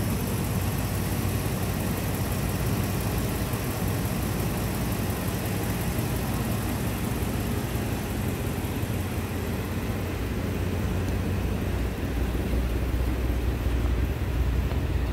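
Ford 5.4-litre V8 engine of a 2005 E250 van idling steadily, a low even rumble that gets a little louder near the end.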